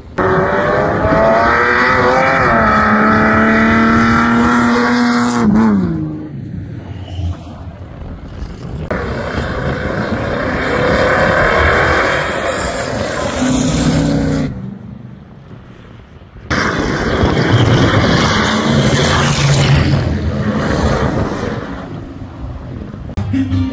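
Dirt drag racing vehicles' engines running at full throttle. The first engine winds up in pitch, holds, and drops off about five seconds in. Several shorter stretches of engines running hard follow, each starting and stopping abruptly.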